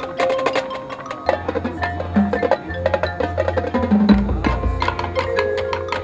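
Marching band playing a percussion-heavy passage: many sharp struck hits over held pitched notes, with deep low notes swelling in about a second in and again near four seconds.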